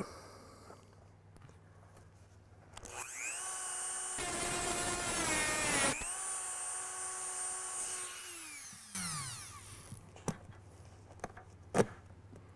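Dremel rotary tool spinning up to a high, steady whine about three seconds in. It grinds gritty and loud for about two seconds as it cuts through a metal seat-cover fastener, then runs free and winds down with a falling pitch. A couple of sharp clicks come near the end.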